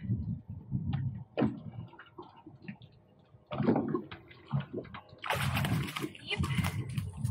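Water sloshing and splashing at the side of a boat, with scattered knocks and clicks and a louder burst of splashing a little after five seconds in, as a snapper is brought to the landing net.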